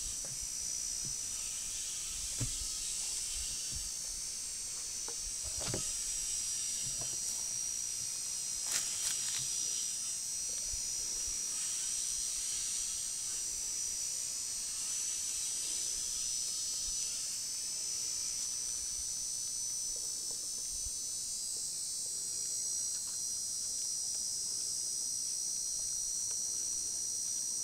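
Steady, high-pitched chorus of insects, crickets or similar, shrilling without a break. A few brief knocks and rustles come in the first third, from hands handling bamboo sticks and masking tape.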